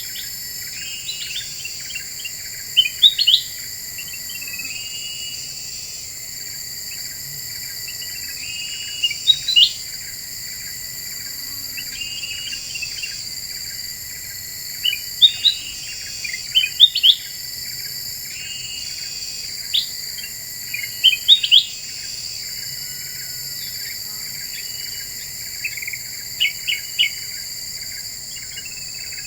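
Kutilang emas bulbul singing in short bursts of quick rising chirps every few seconds, a lure call for drawing in wild birds. Under it runs a steady high-pitched insect drone.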